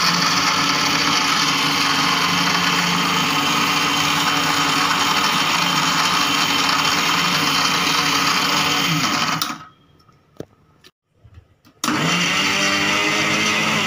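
Electric mixer grinder running, grinding biscuits into crumbs in its small jar. It stops about two-thirds of the way through and, after a couple of seconds with a few faint clicks, starts again.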